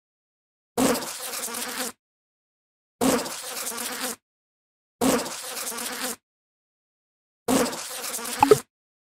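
Bee buzzing in four short bursts of about a second each, separated by complete silence, each burst starting louder and then holding a steady buzz. A brief sharp spike comes near the end of the last burst.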